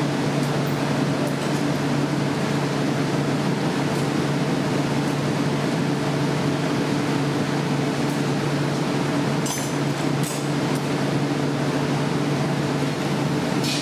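Steady roar and hum of a glassblowing studio's burners and ventilation fans, with a few faint ticks about two thirds of the way through.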